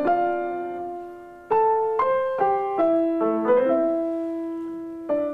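Grand piano played slowly: a chord rings and fades, then several notes and chords follow in quicker succession, and a long note is left to die away before new notes come in near the end.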